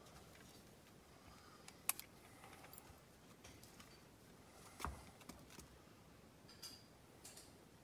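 Near silence broken by a few faint, sharp clicks and a soft knock of metal handling, the pistol being readied before firing.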